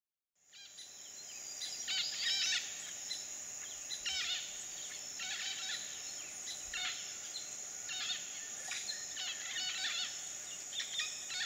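Tropical rainforest ambience: a steady high-pitched insect drone, with short repeated bird calls over it every second or so. It fades in at the start.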